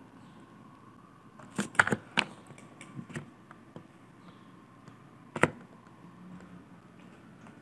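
Sharp clicks of a computer mouse and keyboard over a faint room hum: a quick cluster of clicks about two seconds in, a few lighter ones about a second later, and a single loud click near the end.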